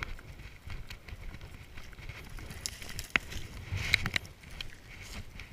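Handling noise from a nuc box being carried on foot: footsteps and the box knocking and rubbing, with a few sharp knocks about three and four seconds in.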